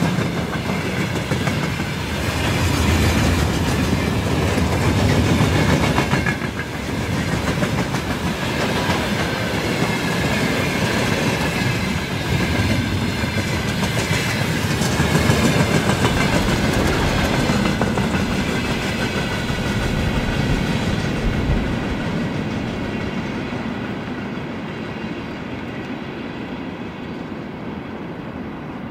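A train passing close by, its wheels clattering rhythmically over the rail joints, the sound fading gradually near the end as it moves away.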